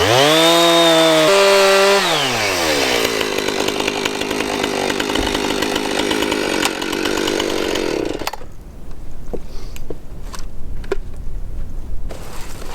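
Husqvarna Rancher 455 two-stroke chainsaw revs up to full throttle, then its pitch sinks as the chain bites into a pine log and it saws on for several seconds. The sound stops abruptly about eight seconds in, and a few light knocks follow.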